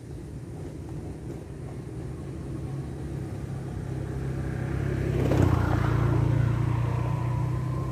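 A motor vehicle passing unseen: a low engine rumble that slowly builds, is loudest a little past the middle and then holds, with a faint steady whine near the end.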